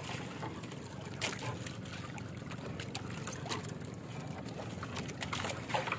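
Fishing net being hauled by hand over the side of a wooden outrigger boat: water trickling and lapping as the wet net comes aboard. A few short knocks or clicks come about a second in, midway, and near the end.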